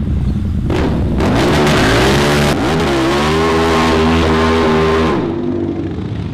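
Motorcycle engine revving: the pitch climbs about three seconds in, holds high, then the sound fades away near the end.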